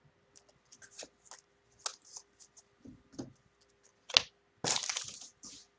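Trading cards and their plastic packaging being handled: small clicks and crinkles, a sharp snap about four seconds in, then a short crinkling rustle.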